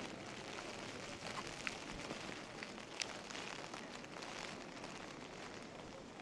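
Rain falling with a steady hiss, with a few sharp ticks of drops striking close by.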